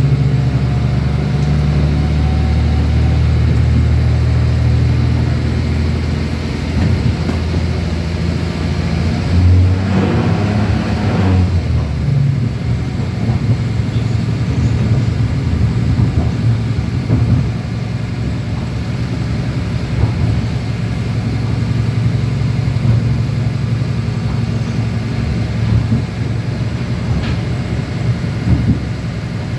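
A passenger train running, heard from inside the carriage: a steady low engine hum with wheel and track rumble. About ten seconds in, the engine note changes briefly. After that the rumble of the wheels, with occasional knocks, takes over.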